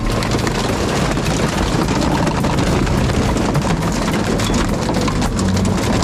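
Heavy scrap-processing machinery running with a steady low rumble, overlaid by constant crackling and crunching of material being broken up.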